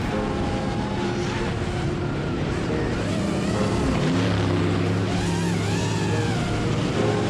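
Late model race car engines running, under a background music track.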